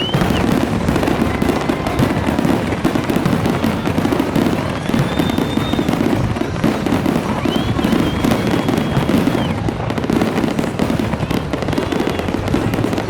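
Fireworks display going off in a dense, continuous barrage of bangs and crackles, with a few short high whistling tones.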